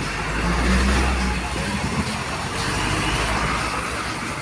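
Heavy diesel truck driving past close by, its low engine rumble loudest about a second in. A single sharp knock comes about two seconds in.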